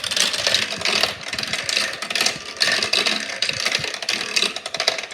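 Marbles rolling and clattering down a marble run, a dense stream of rapid clicks and rattles.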